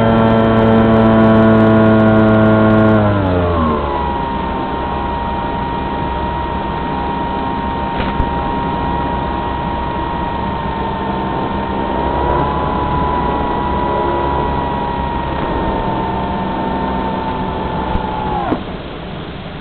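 Electric motor and propeller of an E-flite Opterra flying wing heard from on board, with a rush of air noise. It buzzes loudly at first, drops in pitch about three seconds in as the throttle is pulled back, then holds a steady whine through the gliding descent and spools down suddenly near the end as the motor is cut for landing.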